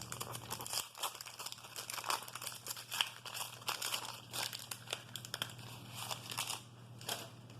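A wax-paper pack wrapper of 1988 Topps baseball cards crinkling and crackling in the hands as the pack is opened, a dense, irregular run of crackles throughout.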